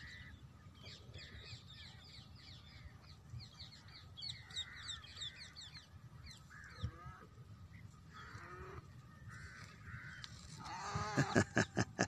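Wild birds calling: a rapid run of short, high, falling chirps, then sparser, harsher calls. Near the end come a few sharp knocks and louder calls.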